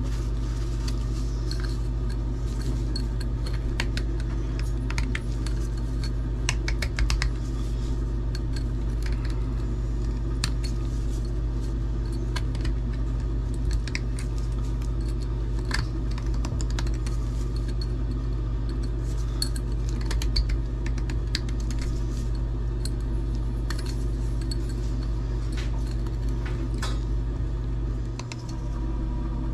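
Scattered light metallic clinks and handling noises from copper pipe fittings and hand tools as they are wiped with a shop cloth, over a steady low hum.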